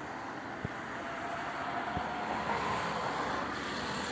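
Distant jet airliner engines: a steady rushing roar with a faint whine, growing louder about halfway through.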